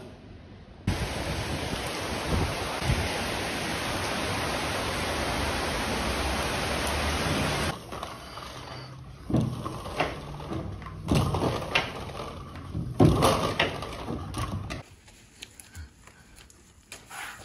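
Heavy rain pouring down, a steady loud hiss that cuts off abruptly a little before the eight-second mark. After it comes a run of irregular knocks and rattles, then it goes quieter near the end.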